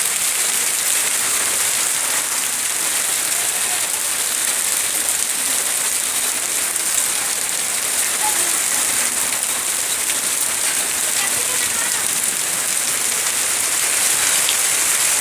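Hailstorm: hail and rain pelting down steadily, a dense even hiss of countless small ticks.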